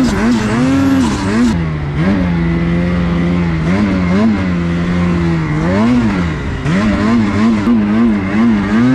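2024 Ski-Doo Summit X Turbo snowmobile's two-stroke engine pulling through deep powder, the throttle blipped on and off so the pitch rises and falls about twice a second. In the middle it settles to a steadier, lower drone for a few seconds before the quick rise and fall comes back.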